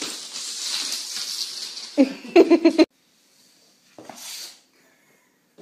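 A cat's claws scrabbling and scratching on a smooth wooden floor as it chases a toy. About two seconds in come a few short, loud vocal sounds, and then the sound cuts off.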